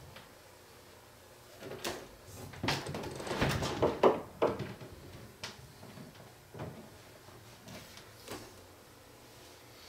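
Clicks, knocks and rustling of cables and gear being handled at an equipment rack, busiest in a cluster from about two to four and a half seconds in, then a few single clicks.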